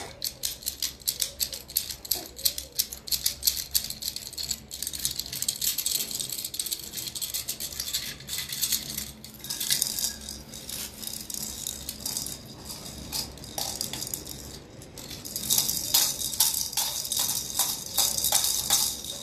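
Rapid, irregular rattling and clicking close to the phone's microphone from the hands and bangles moving near it, heaviest near the start and again near the end.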